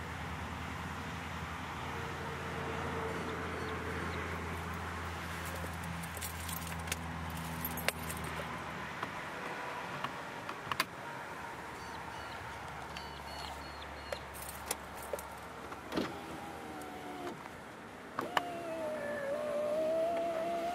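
Inside a parked car: a steady low engine hum that fades about halfway through, scattered clicks and knocks from handling in the cabin, then a wavering motor whine near the end, typical of an electric power window moving.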